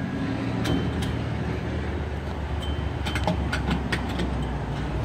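Gas pump dispensing fuel while a truck's tank is topped off: a steady low hum, with a few sharp clicks, most of them in the second half, typical of the nozzle tripping its automatic shut-off on a full tank.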